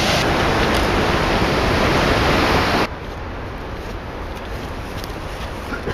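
Mountain creek rushing over rocks, a loud steady rush of water that cuts off abruptly about three seconds in. It gives way to a quieter, even outdoor hiss with a few faint ticks.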